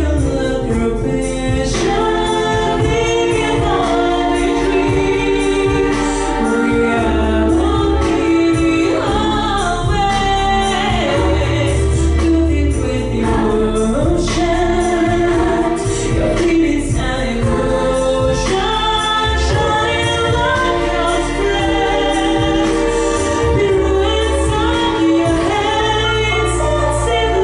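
A woman singing a song with instrumental accompaniment: long held, gliding sung notes over a sustained bass line.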